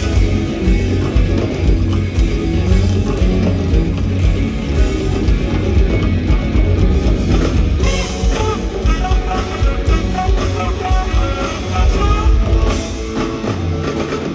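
Live rock band playing an instrumental jam on electric guitars, bass and drums, with a lead electric guitar playing runs of short high notes through the second half.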